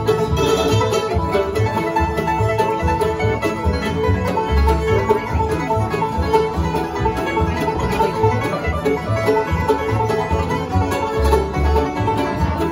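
Bluegrass band playing live: banjo and fiddle over acoustic guitar, a lap-played resonator guitar and an upright bass plucking a steady beat.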